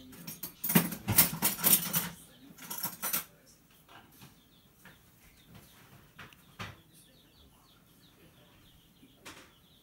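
Kitchen handling noise: a run of clinks and rustles for about three seconds, then a few faint scattered clicks.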